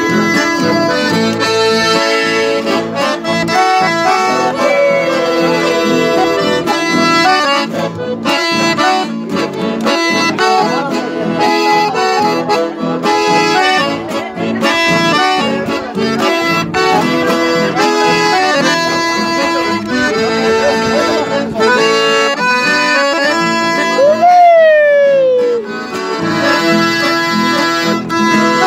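Chamamé played on a piano accordion with strummed guitar accompaniment, a steady lively tune. About 24 seconds in, a loud cry rises and then falls in pitch over the music.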